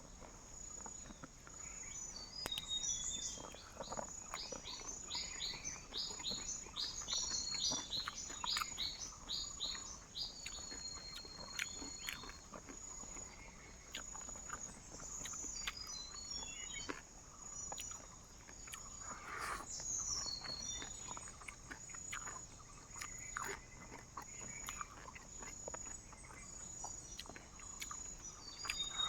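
Jungle morning ambience: an insect trills steadily at a high pitch throughout, while birds call over it. There is a quick run of short whistled notes in the first several seconds, then scattered calls.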